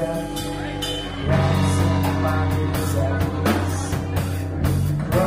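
Live rock band playing: a semi-hollow electric guitar strummed over drums and low bass notes. The music gets louder and fuller about a second in.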